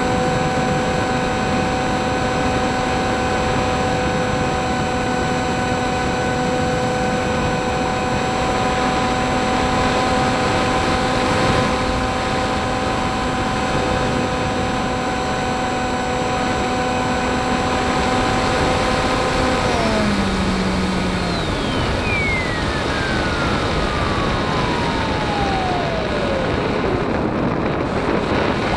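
Model FPV plane's motor and propeller running at steady throttle with an even whine over a constant rush of air. About 20 seconds in the motor drops in pitch and cuts back, then a high whine slides slowly down in pitch.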